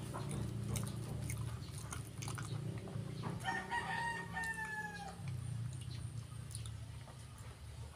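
A rooster crows once in the background, a single call of under two seconds beginning about three and a half seconds in and dropping slightly in pitch at its end. Close chewing and mouth clicks and a steady low hum run underneath.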